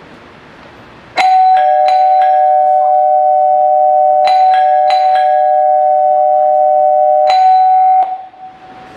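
Electric doorbell ringing as a stage sound effect: a steady two-tone ring starts about a second in and is held for about seven seconds, with several sharp clicks along it, then cuts off.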